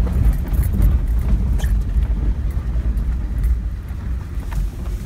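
Vehicle driving over a rough dirt and snow trail, heard from inside the cab: a steady low rumble of engine and tyres with a few small knocks and clicks.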